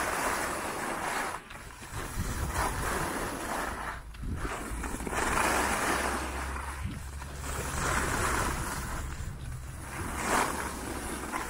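Skis sliding and scraping over packed snow, a rushing hiss that swells and fades every two to three seconds, over a steady low rumble.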